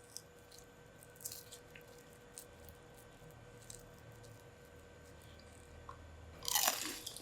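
Crispy fried potato snacks being bitten and chewed, with loud crunches near the end after a few faint clicks.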